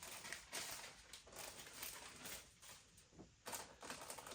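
Soft rustling of paper and plastic packaging as the kit's contents are handled, with a few light knocks about three and a half seconds in.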